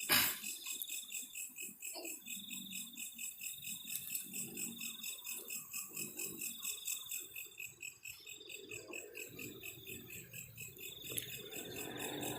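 Crickets trilling in repeated short bursts, with faint rustling underneath and a sharp click right at the start.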